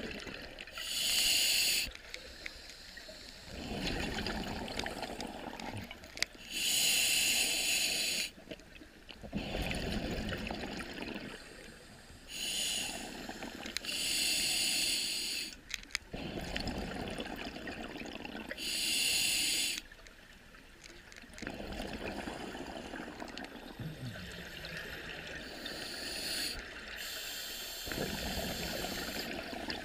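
Scuba diver breathing underwater through an open-circuit regulator: a hissing inhale, then a burst of exhaled bubbles, repeating about every six seconds.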